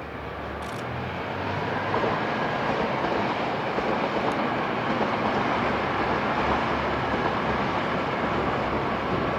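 Kyoto Tango Railway KTR8000 diesel railcar set passing, its engines and wheels on the rails growing louder over the first two seconds and then holding steady.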